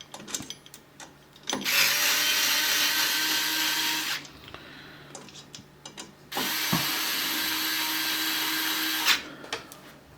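Low-powered cordless electric screwdriver running in two bursts of about three seconds each, winding bolts into the printer's metal frame, with small clicks of handling between the runs.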